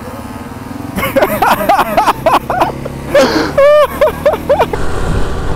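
Motorcycle engine running steadily while riding. Untranscribed voices are heard over it from about a second in.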